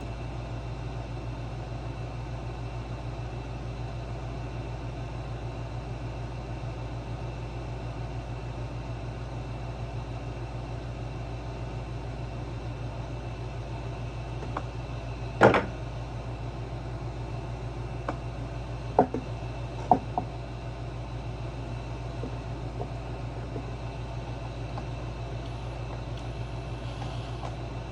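A steady low hum with a few sharp knocks and clicks of parts being handled during disassembly work, the loudest about halfway through and two smaller ones a few seconds after it.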